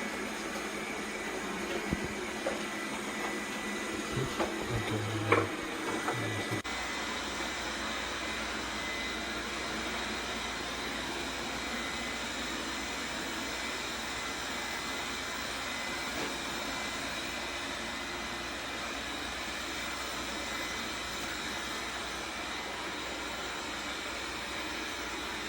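BPMIO robot vacuum running: a steady whir with a thin high whine, and a few light knocks in the first several seconds.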